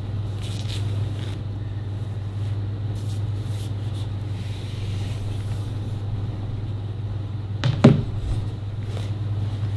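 Steady low hum with faint rustling and light clicks as a katana is taken out of its cloth sword bag, and a short knock about eight seconds in.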